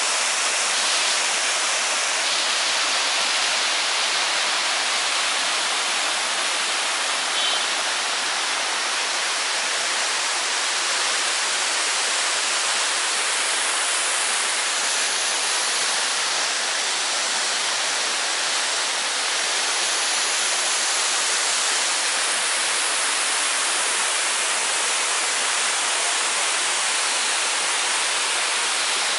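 Waterfall: water falling in a steady, unbroken rush.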